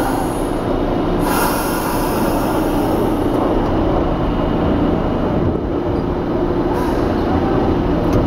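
Vintage R12 New York subway car running through the tunnel, heard from inside the car: a steady rumble of wheels on rail.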